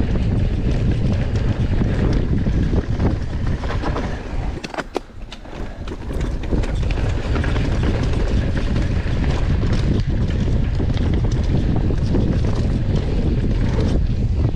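Wind buffeting an action camera's microphone, mixed with the rumble and rattle of a downhill mountain bike running fast over a rough trail. About four and a half seconds in, the rumble drops away for about a second and a half, with a few sharp clicks, then returns at full level.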